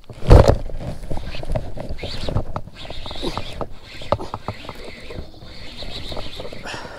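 Close handling noise: one loud knock, then a run of small clicks, knocks and rustling as hands work a baitcasting reel and its line.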